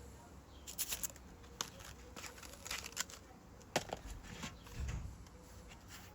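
Handling of the sander's packaging and plastic parts: irregular clicks, rustles and crinkles, with a dull knock about five seconds in.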